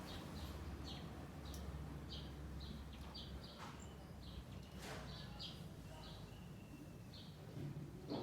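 Small birds chirping faintly: many short, high chirps repeating every half second or so over a low background hum.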